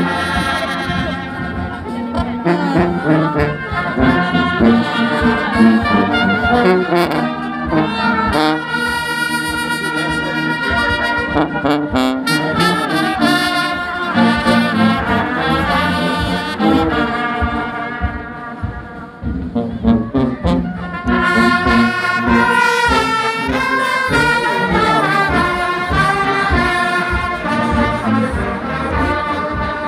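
Brass band of sousaphones, trumpets and other brass playing a tune over a steady beat. It drops away briefly about two-thirds through, then comes back in.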